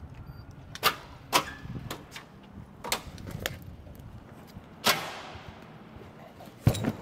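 A series of sharp knocks and clanks, about six, with one about five seconds in leaving a long echoing tail, over a faint steady hum.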